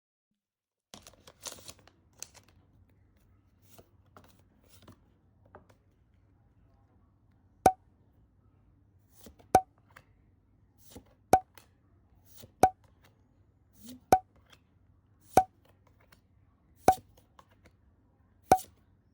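Faint rustling at first, then a run of about eight sharp, identical clicks, roughly one every second and a half, as Pokémon trading cards are revealed one by one from a booster pack.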